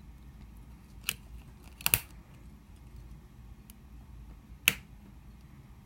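Lock-picking tools working in a cheap bike lock's cylinder: four sharp metallic clicks, one about a second in, a quick pair near two seconds, and one more near the end, over a faint low hum.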